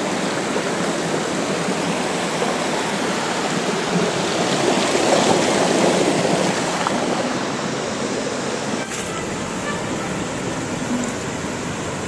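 Steady rush of water falling at a waterfall. About nine seconds in, the sound drops slightly and becomes a little duller.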